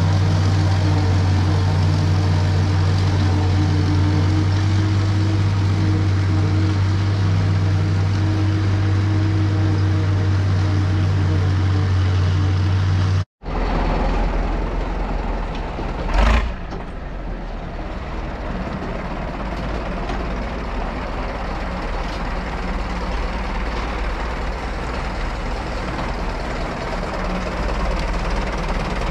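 Tractor engines. First an International 1256 tractor pulling a New Holland 790 forage chopper through standing corn, a steady hum with strong low tones. Then a different tractor, a Case 830, runs steadily as it pulls a loaded chopper box wagon, with one short loud bang a few seconds after it starts.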